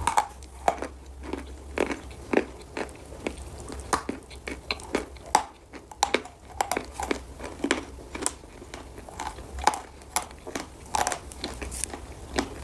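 Pieces of eating chalk bitten and chewed close to the microphone: a run of irregular dry crunches and cracks, some coming two or three in quick succession.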